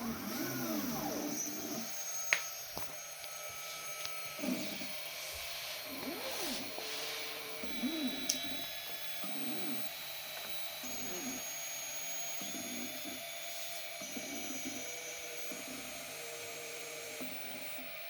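Niryo One robotic arm's stepper motors whining through a series of joint moves, each a short tone that rises and then falls in pitch as the arm speeds up and slows down. Sharp clicks come about two seconds in and again about eight seconds in.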